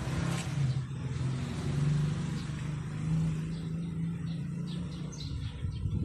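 A motor vehicle engine running with a steady low drone, and a few faint bird chirps near the end.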